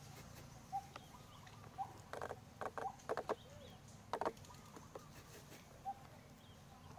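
Dry crackling and rustling in short bursts as a young macaque picks at a tuft of dry fibres, with a short chirp repeating about once a second in the background.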